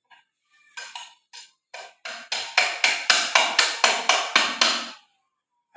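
Rhythmic clicking from the ceiling-fan generator as its permanent-magnet rotor is spun: a few sparse clicks that speed up to about four or five a second, then stop suddenly.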